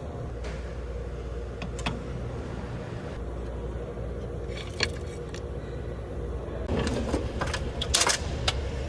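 A steady low mechanical hum, with a few sharp metallic clicks and, from about seven seconds in, a short run of louder clinks and rattles.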